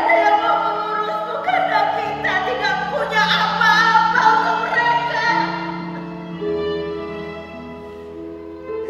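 A woman wailing loudly in grief over slow background music of long held notes; the wailing dies away a little past halfway while the music goes on.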